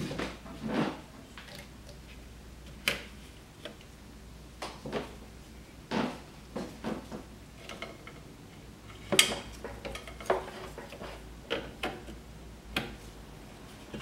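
Scattered plastic-and-metal clicks and knocks of a PCIe riser board being handled and fitted to a graphics card, at irregular intervals with the sharpest knock about nine seconds in.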